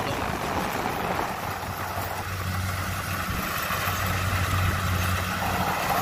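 Kubota DC70 combine harvester running steadily as it cuts and threshes lodged rice, its diesel engine giving a steady low hum that strengthens about two seconds in.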